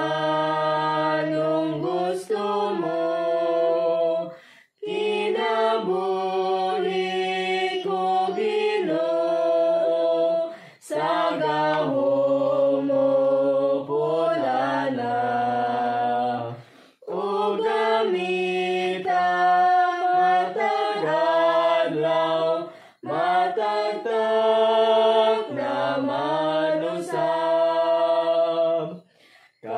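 A few voices singing a Cebuano hymn together unaccompanied, in phrases of about six seconds with short breaks for breath between them.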